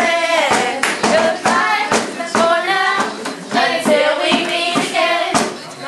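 Several voices singing together, with hand claps keeping a beat about twice a second.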